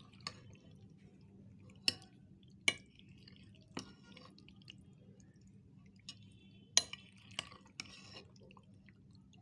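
Raw chicken livers being mixed with spice paste in a glass bowl: a handful of sharp clinks against the glass, with soft wet squishing between them.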